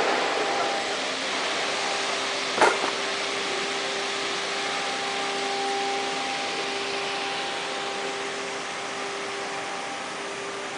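Five-axis CNC woodworking machining centre running at a standstill: a steady mechanical hum with a constant tone, broken once by a single sharp knock about two and a half seconds in.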